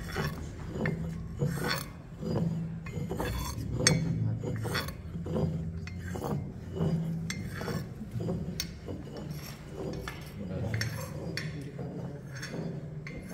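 Stone pestle grinding and rubbing in a heavy stone mortar while a metal spatula scrapes the stone and clinks against it, with repeated short strokes at irregular spacing. This is mercury being ground into a grey paste during its purification (parada shodhana).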